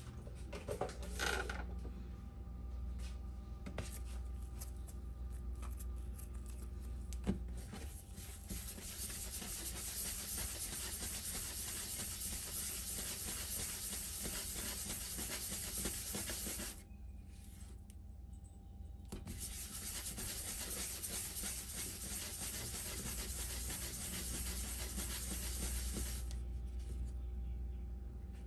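Hands rolling and rounding a piece of bread dough on a wooden cutting board: a steady rubbing hiss that stops for about two seconds midway and then resumes. A single light knock comes just before the rubbing starts.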